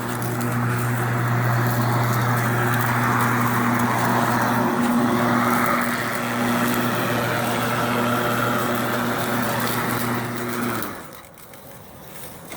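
Battery-powered electric lawnmower motor running with a steady hum, which cuts off abruptly about eleven seconds in.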